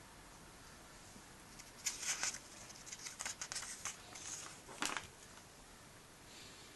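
Comic book's glossy paper cover being handled and turned by hand: a string of crisp paper crackles and rustles starting about two seconds in, with the sharpest crackle about five seconds in.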